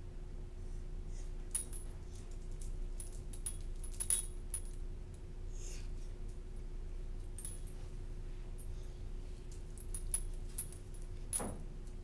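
A dog's collar tags jingling in scattered light clinks as the dog moves about, over a steady hum. There is one louder knock near the end.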